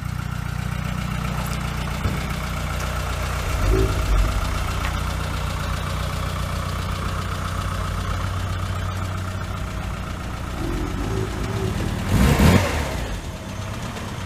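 Classic Mini's A-series four-cylinder engine running at low revs as the car is manoeuvred off a driveway and pulls away, with a brief louder burst about twelve seconds in.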